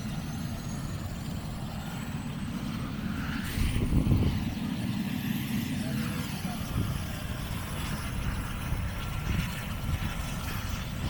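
Helicopter's turbine engine and rotor running, a steady low rumble with a faint high whine above it.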